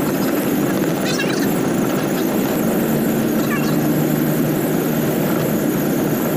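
Steady cab noise of a truck at highway speed: engine and tyre drone, with two brief high squeaks about a second and three and a half seconds in.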